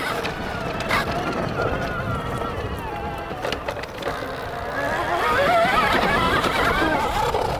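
Sur-Ron Storm Bee electric motocross bike's motor whining, wavering in pitch as the rider works the throttle. It rises and grows louder about five seconds in as he accelerates toward the camera, over a steady low rushing noise.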